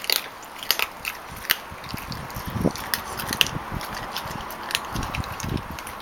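A Labrador puppy chewing a raw chicken leg: irregular sharp crunches and clicks of teeth working on the meat and bone.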